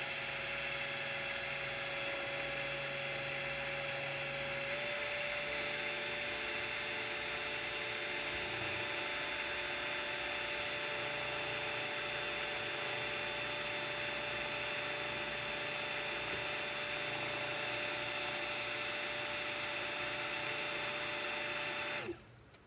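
Stick (immersion) blender running steadily in soap batter: a constant motor whine whose pitch steps up slightly about five seconds in, cutting off near the end. The batter is being blended from thin toward medium trace.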